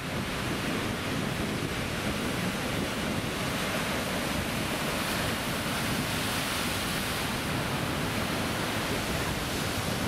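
Ocean surf breaking and churning over shoreline rocks: a steady rush of foaming water with no single sharp crash.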